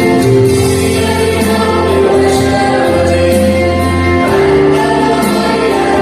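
A choir singing an Arabic Christian hymn over a remixed backing track, with sustained sung notes, a steady bass line and regular percussion hits.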